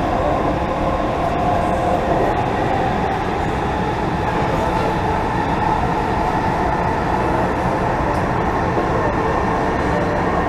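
Dubai Metro train running at speed on its elevated line, heard from inside the carriage: a steady rumble of wheels and running gear with a faint whine through it.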